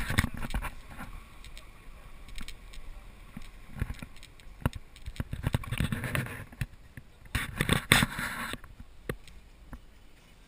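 Toyota Land Cruiser 150 driving, heard from inside the cabin: a low road and engine rumble with scattered irregular knocks and a couple of louder rushing bursts of noise around the middle and later on.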